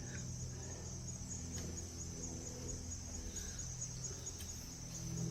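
Crickets trilling in a steady, high, fast-pulsing chorus, over a low steady hum.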